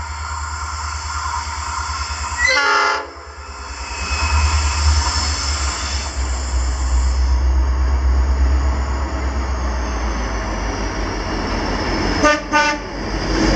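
G class diesel locomotive approaching and passing with a passenger train, its engine throbbing louder as it nears. Its horn sounds a short blast about two and a half seconds in, then two quick toots near the end.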